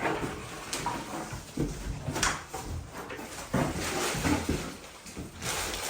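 Young pigs grunting, mixed with scattered knocks and rustling from movement in the pen.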